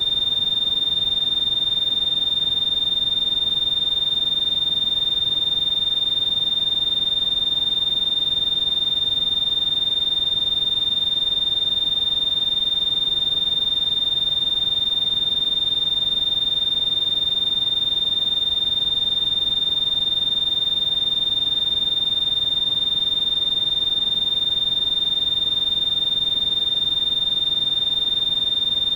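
A single high-pitched electronic pure tone held steady without any change in pitch or loudness, over a faint hiss of noise: a tinnitus-masking tone.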